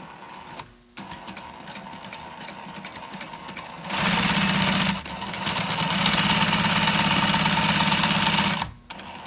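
SEWPRO 2153B top-and-bottom feed, wide-zigzag heavy-duty sewing machine stitching a piece of fabric at speed, a fast, even needle clatter. It starts about four seconds in, pauses briefly after a second, then runs steadily again until shortly before the end.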